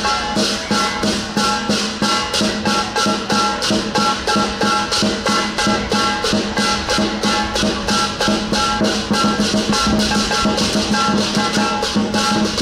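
Chinese lion-dance percussion, drum and cymbals, playing a steady fast beat of about three to four strokes a second over a sustained ringing tone.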